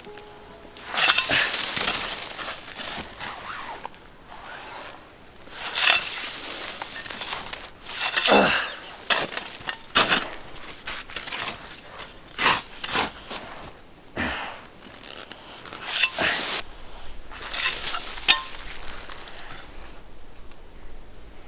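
A shovel digging and scraping into packed snow, crunching strokes at irregular intervals of a second or two, while a snow cave is being carved out.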